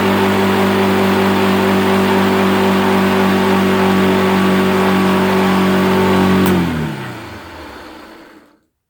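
Freshly refurbished grey Hoover Junior upright vacuum cleaner running at a steady pitch. It is switched off with a click about six and a half seconds in, and its motor winds down with a falling pitch.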